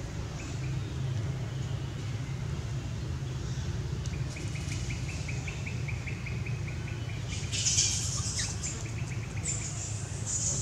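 Outdoor ambience with a steady low rumble, and a bird calling in a rapid series of even chips, about five a second, for a few seconds from the middle on. Short bursts of high hiss come near the end.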